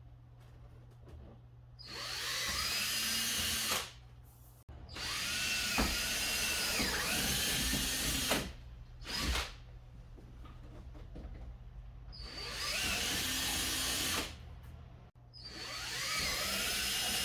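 Power drill drilling holes into a car's front bumper, in about four runs of two to four seconds each plus one short blip, its whine dipping and rising in pitch during each run.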